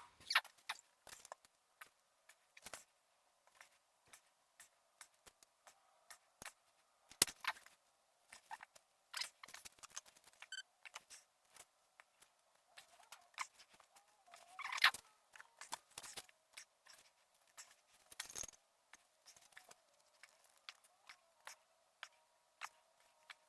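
Faint, irregular clicks and taps of hand work, with a few louder knocks about 7, 15 and 18 seconds in, over a faint steady hum.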